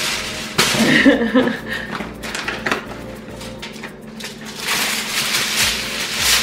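Kitchen aluminium foil being crinkled and pressed into place: a dense, crackling rustle. There is a short vocal sound about a second in.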